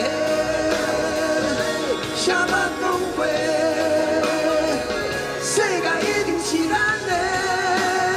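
Male lead vocals singing a Taiwanese Hokkien rock song live into handheld microphones over rock accompaniment, with long held notes and vibrato.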